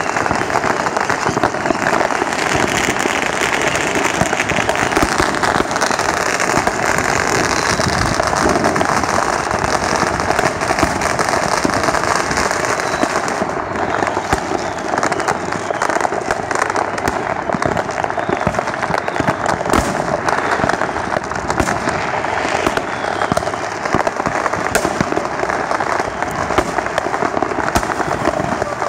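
Many fireworks going off at once: firecrackers crackling densely and continuously, packed with countless sharp pops and bangs from aerial shells.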